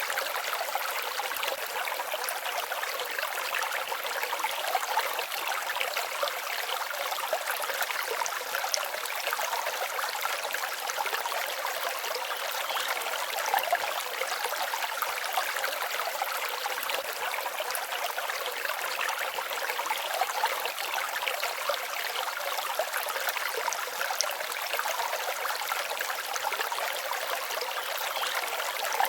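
Forest stream babbling and trickling over stones, a steady light splashing with little low rumble.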